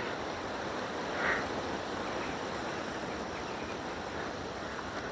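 Steady outdoor background hiss with no clear single source, and one faint brief sound about a second in.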